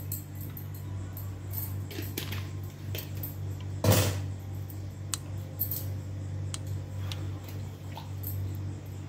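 Light clinks and taps of a spoon and bottle against a mixing bowl while kewra water is measured into a marinade, with one louder knock about four seconds in, over a steady low hum.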